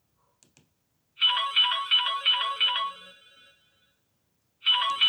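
Samsung Galaxy Europa (GT-I5500) built-in ringtones playing through the phone's speaker. After two faint clicks, one ringtone plays a short phrase of about six quick repeated notes that fades away, and near the end a different ringtone starts.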